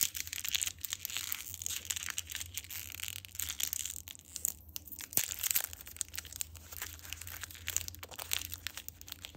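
Crinkling and crackling of a foil-lined candy wrapper as a wrapped caramel is twisted open and peeled by hand, a continuous run of small irregular crackles.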